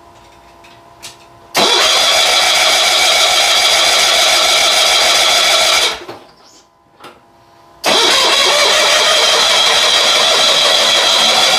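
Starter cranking the John Deere 70 skid-steer's two-cylinder engine in two long attempts of about four seconds each, with an even, rapid beat and no firing. The engine won't catch because the ignition is giving no spark.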